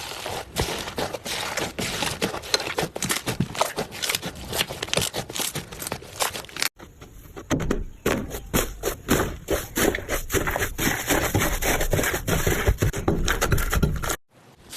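Hands squishing and poking slime, a dense, irregular run of small sticky clicks, pops and crackles. The sound cuts abruptly about seven seconds in to another take of the same kind of slime play.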